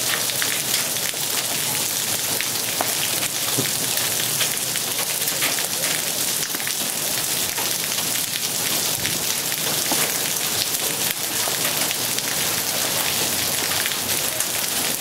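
Small hail mixed with rain pelting down, a steady dense patter full of sharp little ticks.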